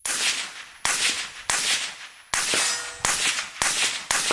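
Mk 18 AR-15 carbine in 5.56 firing a string of seven single shots, about one every half second to a second, each crack trailing off before the next.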